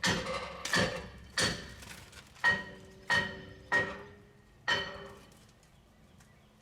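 Hammer striking metal in a steady rhythm, about seven ringing blows roughly two-thirds of a second apart, stopping about five seconds in.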